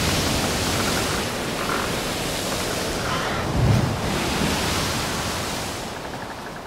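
Steady rush of wind and sea water, with one low gust buffeting the microphone a little over halfway through, fading out near the end.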